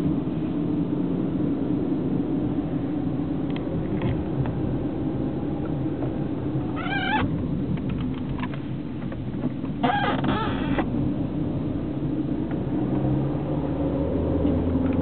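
Car driving, a steady rumble of engine and tyres heard from inside the cabin. Twice, about seven and ten seconds in, a short high-pitched wavering sound cuts through.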